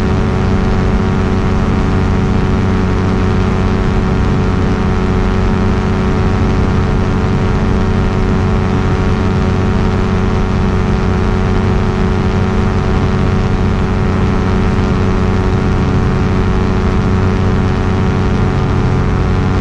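Quicksilver Sport 2S ultralight aircraft's engine and propeller running steadily at constant power, an even, unchanging drone.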